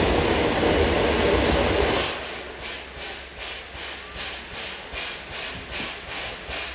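Train on the move: a loud rushing noise for about two seconds, then a steady clickety-clack of wheels over rail joints at about two or three beats a second.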